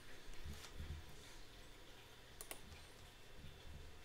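Faint handling noise from a microphone held in the hand: a few low bumps, scattered light clicks, and a pair of sharp clicks about two and a half seconds in.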